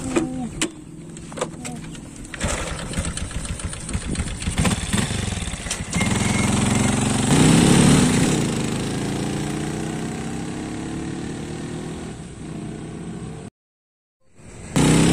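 Underbone motorcycle: a few clicks, then the engine starts about two seconds in and runs, revving up as the bike pulls away about six seconds in. The engine note then slowly fades, and a short gap of silence comes near the end.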